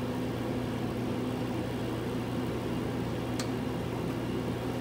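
Steady low machine hum, with a single sharp click about three and a half seconds in.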